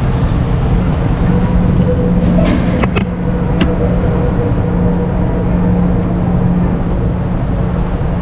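Steady low hum and rumble of a moving vehicle heard from inside, with a few light clicks about two and a half to three and a half seconds in.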